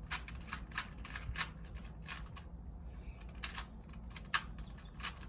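A 3x3 Rubik's cube being scrambled by hand: quick, irregular plastic clicks of the layers turning, a few a second, with a short pause about halfway.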